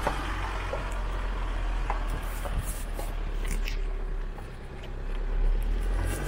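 Isuzu D-Max pickup driving slowly over a rocky dirt track: a steady low engine and road rumble with scattered clicks and knocks, dipping slightly past the middle and then swelling again.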